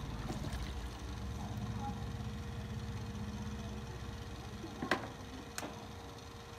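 A low pulsing rumble that fades after about four seconds, then two sharp taps about a second apart near the end, as an egg is cracked at the rim of a banh cuon steamer.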